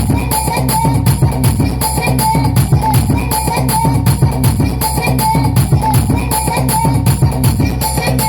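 Loud music played for a DJ sound check: a fast, even beat with heavy bass and shaker-like percussion, and a short melody repeating over it.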